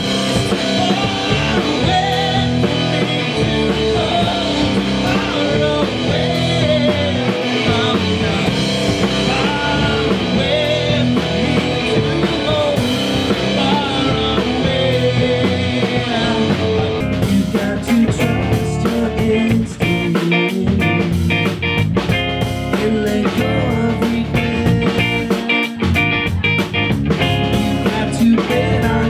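Live rock band playing: electric guitar, bass guitar and drum kit with a lead vocal, the drums and cymbals hitting harder from about halfway through.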